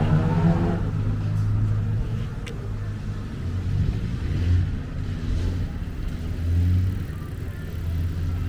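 A car engine passes close by and fades within the first second. A low road-traffic rumble follows, swelling twice as more vehicles go by.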